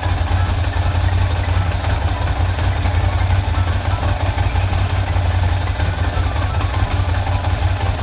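Ducati Monster 1100S's air-cooled L-twin engine idling steadily.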